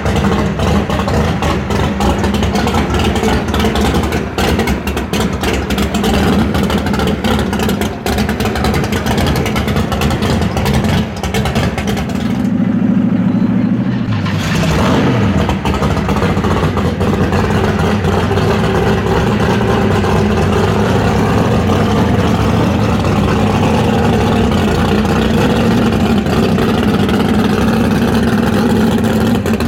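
Loud V8 muscle car engine running and revving, with a short break about halfway through where only a low hum remains before the engine note returns.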